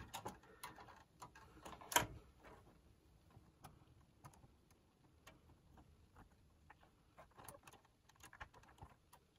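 Faint, scattered clicks and taps from fingers handling the plastic cassette mechanism of a Sanyo M-W1L twin-deck boombox, with one louder click about two seconds in.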